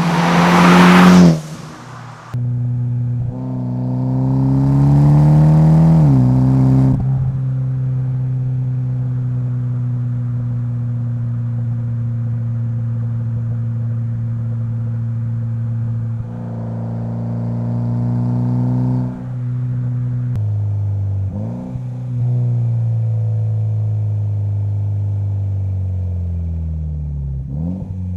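Mitsubishi Lancer Evolution X's turbocharged 2.0-litre four-cylinder through an HKS Hi Power single-exit exhaust. It opens with a loud burst of acceleration that cuts off about a second in. It pulls again with rising pitch, holds a steady drone, and rises briefly a few more times before a long falling-pitch deceleration and a quick blip near the end.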